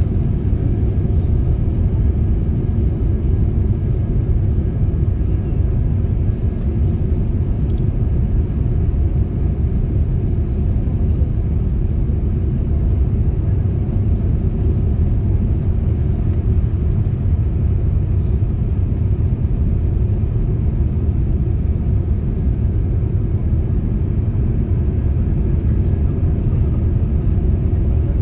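Airbus A350 cabin noise on the landing approach: a steady, loud, low rumble of engines and rushing air, heard from a window seat over the wing.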